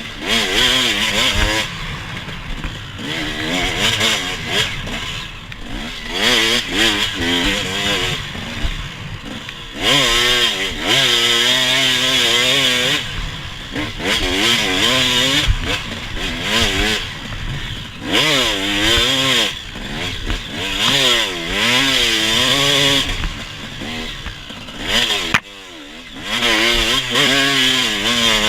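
Off-road vehicle engine on a sandy trail, its pitch rising and falling again and again as the throttle is opened and closed, with a brief drop in level near the end.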